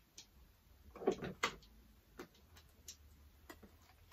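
Light plastic clicks and knocks from handling a Kenwood CAP70 electric can opener as a small part is pushed into a hole in the side of its housing: a few scattered taps, with a small cluster about a second in.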